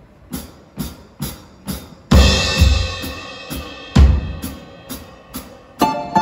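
Music on a drum kit: steady ticks about twice a second, then a cymbal crash with bass drum about two seconds in and another bass drum hit later. Plucked string notes come in near the end.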